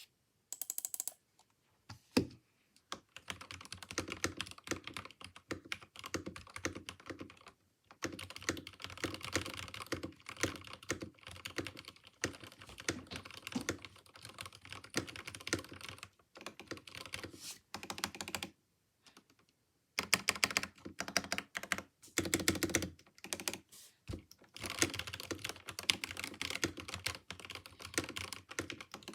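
Mechanical keyboard with lubed Gateron Yellow linear switches being typed on in fast runs of keystrokes, broken by a few short pauses.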